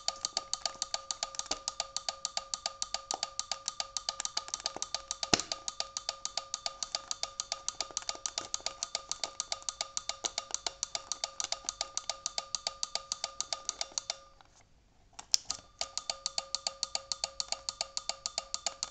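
Car turn-signal flasher relay clicking rapidly and evenly, several clicks a second, over a steady high tone as it switches the indicator lamps on and off. The clicking stops about 14 seconds in, there is a single click, and then it starts again.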